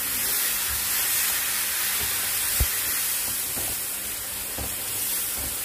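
Tomato purée sizzling in a pan of fried onion-and-spice masala, a steady hiss with a few soft knocks, the sharpest about two and a half seconds in.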